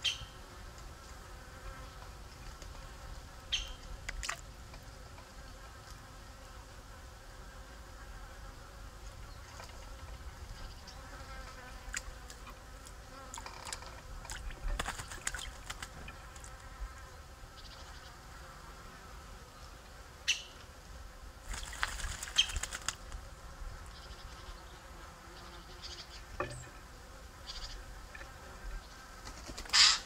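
Insects buzzing steadily at the microphone, broken by short bursts of splashing as a Eurasian jay bathes in a shallow pond, twice in longer spells of a second or two. At the very end a loud flutter of wings as the jay takes off.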